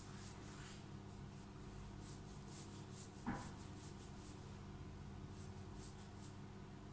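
Fingertips rubbing and scratching through hair and scalp during a scalp massage: faint repeated rustles over a steady low hum, with one brief louder sound a little past three seconds in.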